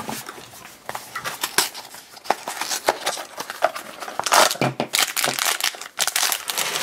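A small cardboard blind box being opened and the foil bag inside crinkling and tearing as it is handled and pulled open, an irregular run of rustles and crackles that gets busier in the second half.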